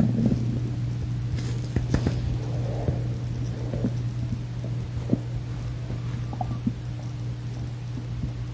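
A hungry, empty stomach growling and gurgling in irregular bursts, with a few sharp clicks, over a steady low hum.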